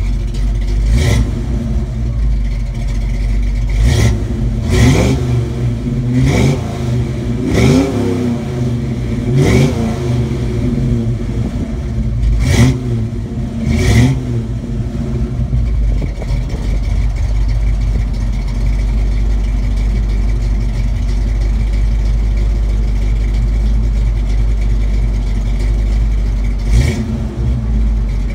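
1990 Ford Mustang LX's engine idling through its exhaust and blipped sharply about eight times in the first half, each rev rising and falling quickly. It then settles into a steady, loud idle, with one more short blip near the end.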